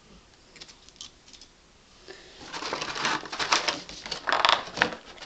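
Clear plastic packaging bag crinkling and rustling as it is handled by hand. The crinkling starts about two seconds in, after a few faint clicks.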